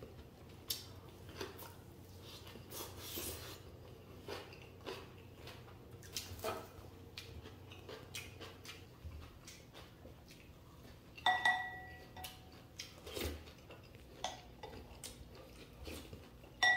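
Eating sounds: chopsticks and a wooden spoon clicking and scraping on ceramic dishes and a glass bowl, with soft mouth sounds in between. A sharp, ringing clink of a utensil against a dish about two-thirds of the way through, and another at the very end.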